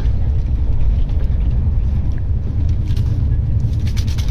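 Passenger train running, a steady low rumble heard from inside the coach. A few light crinkles of a paper packet being torn come near the end.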